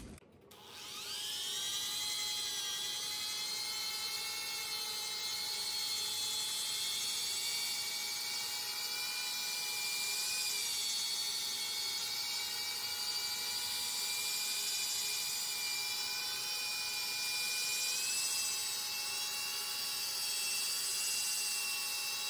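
Electric drill spinning an 800-grit polishing disc on a flexible attachment over wet marble. The motor spins up with a rising whine just after the start, then runs steadily, its pitch shifting slightly as the pad is worked over the stone.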